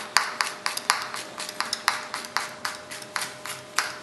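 Kitchen knife chopping quickly on a cutting board, short sharp chops at about four a second.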